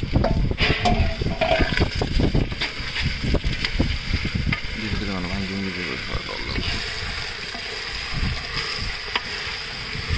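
Food sizzling and frying in a cooking pot as it is stirred, a steady hiss starting about half a second in, with a short voice near the middle.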